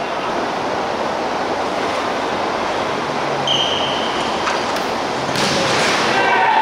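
Steady hiss of hall ambience on an indoor futsal court, broken about halfway through by one short blast of a referee's whistle, then a sharp burst of noise as the ball is kicked near the end.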